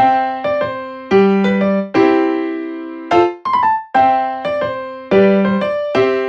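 Background music: a light keyboard tune of struck notes and chords, each note ringing and fading before the next, in a repeating phrase.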